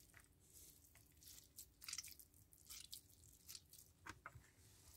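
Near silence with faint, scattered soft squishes and clicks: hands handling a spiced minced-meat mixture.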